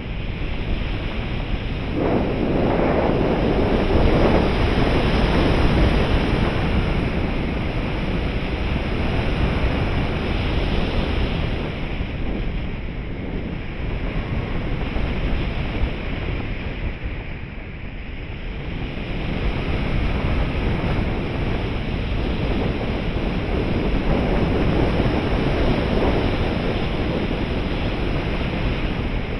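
Wind rushing over the microphone of a camera riding on a 3.6 m RC glider in flight. It is a steady rush that swells and eases, louder a couple of seconds in, dipping a little past the middle, and rising again near the end.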